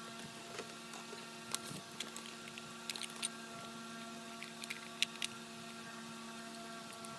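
A steady machine hum with scattered light clicks and taps over it.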